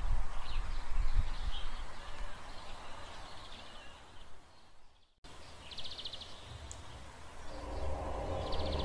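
Outdoor ambience with a low rumble and short bird chirps, fading away to a brief drop-out about five seconds in. Then quieter ambience with two short rapid bird trills, and music fading in near the end.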